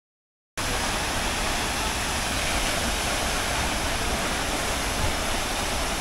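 Jeongbang Waterfall's falling water: a steady rush of water that cuts in abruptly about half a second in, after silence.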